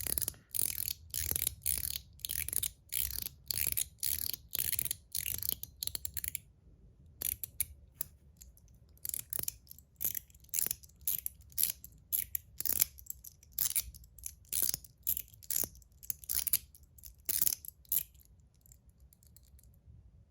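01 EDC fidget slider with a mechanical spring-detent liner, fitted with weaker springs, being snapped back and forth so that it clicks crisply about twice a second. After a brief pause about six seconds in, the clicking resumes less regularly and stops near the end.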